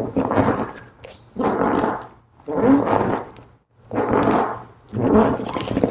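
Stability ball jackknife repetitions: a rhythmic rushing sound in five swells a little over a second apart, in time with the knees tucking and the ball rolling in and out.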